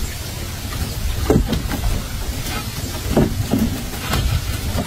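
Steady low rumble, with scattered light knocks and rustles from a muddy mesh fish trap being lifted and handled.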